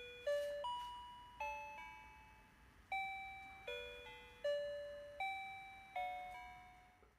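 Electronic lullaby from a baby crib mobile's music box: a slow chime-like melody of single notes, each struck and fading away.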